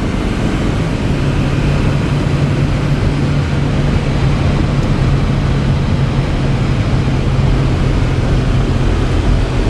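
2004 Chevy C5500's 6.6-liter Duramax diesel engine running with the truck under way, heard from inside the cab along with road noise. A steady low drone sets in about a second in and holds.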